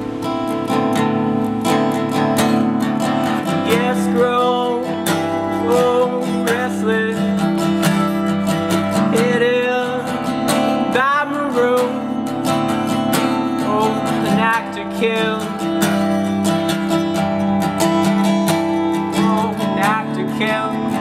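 Acoustic guitar strummed in a steady rhythm, with a man singing over it in phrases from a few seconds in.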